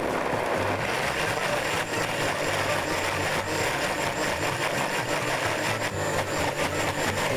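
Countertop blender running steadily, puréeing beetroots with lemon juice and olive oil into a dip.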